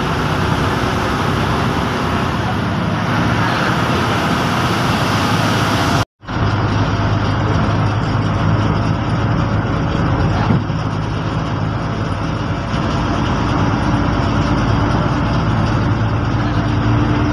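Bus running on the road: steady diesel engine hum with road noise. The sound cuts out for a moment about six seconds in and returns with a stronger low engine hum, and there is a single knock about ten seconds in.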